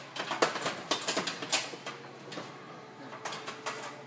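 Irregular clatter and knocks of a wall panel and its steel framing being handled and fitted. The knocks come in two clusters: a run in the first second and a half, and a few more about three seconds in.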